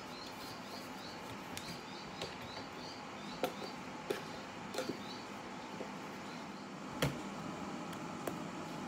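Metal bread-machine pan handled and tipped over onto a kitchen counter to release its risen dough: a few light clicks and knocks, the loudest a single knock about seven seconds in, over a steady background hum. A faint, high, rapid chirping runs through the first five seconds.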